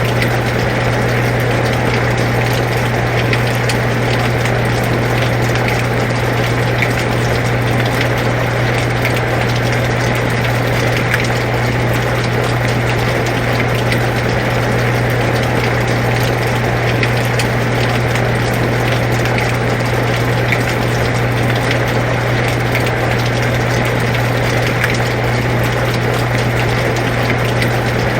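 Air conditioner running with a steady low hum, mixed with the even hiss of falling rain and faint scattered ticks of drops.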